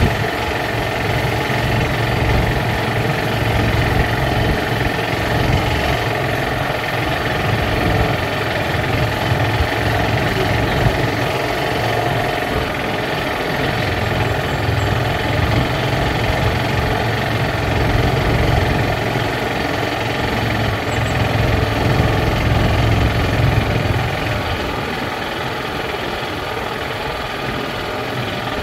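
Small engine of a motor tricycle running steadily as it drives along a road, heard from on board, with a strong low engine note. The engine eases off slightly near the end.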